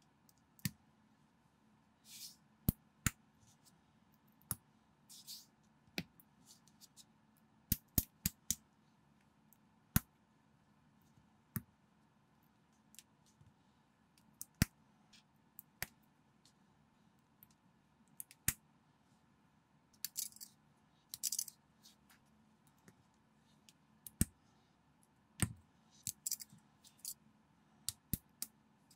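Small plastic building bricks clicking as they are pressed and snapped together by hand, in irregular sharp clicks. A few short rustles come as pieces are handled.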